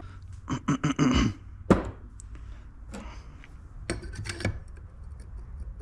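Metal tools and parts being handled on a workbench: clinks and clattering knocks, the loudest a single sharp knock about 1.7 seconds in, and another cluster of clinks around four seconds in.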